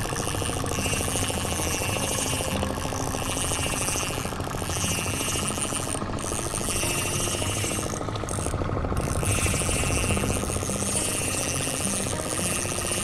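A boat's engine running steadily, a rapid, even thudding that never lets up.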